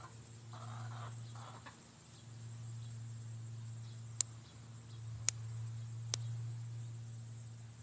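Hens clucking faintly in the first two seconds over a steady low hum and a faint high whine. Later come three sharp clicks about a second apart.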